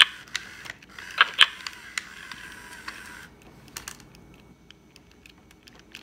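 Squawkers McCaw animatronic parrot toy being fed a finger in its beak, giving a run of clicky crunching eating noises with a couple of short squeaky chirps, which thin out to faint scattered clicks about three seconds in.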